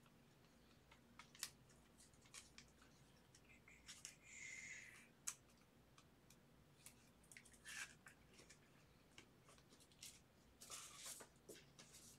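Faint clicks and soft rustles of trading cards and clear plastic card sleeves being handled, with a longer rustle about four seconds in.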